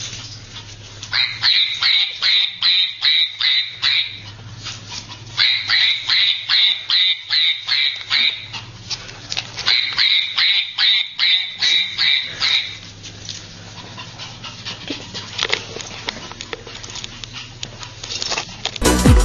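Small dog yapping in quick high-pitched runs, about three yaps a second, in three bursts of a few seconds each, over a steady low hum.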